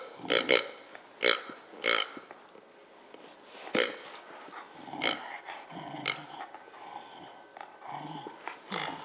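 A pink plush pig squeeze toy honks as a wire fox terrier bites down on it: five short, loud honks in the first four seconds. Softer, muffled sounds follow as he keeps chewing on it.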